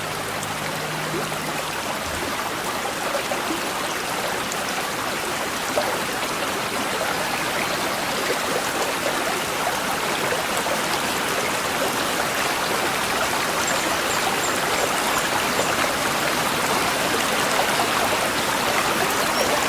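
Babbling brook: small stream water flowing and trickling steadily. The last sustained piano chord dies away in the first second or two.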